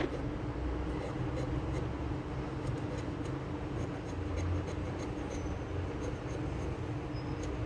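A pencil being sharpened on the blade of an upturned wooden hand plane: light scratching and scraping of wood and graphite against the steel iron, over a steady low hum.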